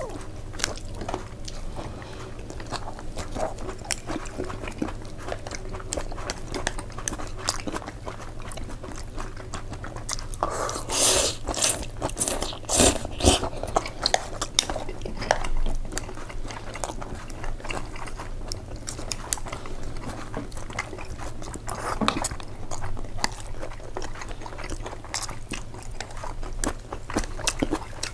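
Close-miked chewing and biting on a mouthful of tomato spaghetti, with many small wet mouth clicks and a few louder mouth sounds near the middle.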